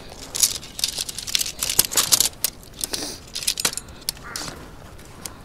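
Folded shock-corded tent poles being unfolded, their sections clacking and clicking against each other and snapping together, with some rustling, in an irregular run of sharp clicks that thins out near the end.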